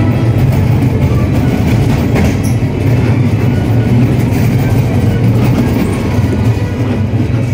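Dark-ride car rolling along its track, a steady low rumble.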